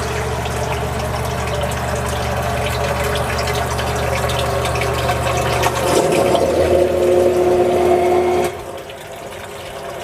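Backup submersible sump pump running in the sump well, with water splashing and gurgling. About six seconds in its sound turns louder and higher-pitched, and about two and a half seconds later it shuts off as its float switch drops.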